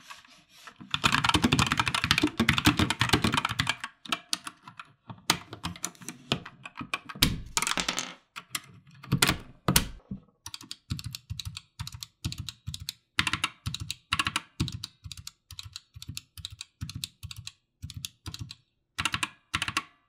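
Geek GK61 60% mechanical keyboard with Gateron red optical switches being typed on. A fast flurry of keystrokes lasts about three seconds, scattered presses follow, and then a steady run of single key presses comes at about two or three a second.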